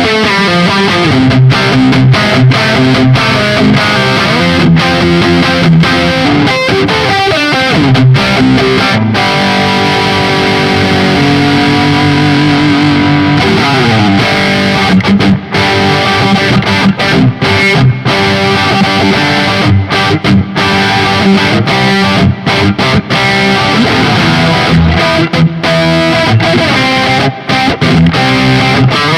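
Höfner 4575 electric guitar played through distortion: riffs and chords, a chord held for a few seconds in the middle that then slides down in pitch, followed by choppy rhythm playing with short breaks between chords.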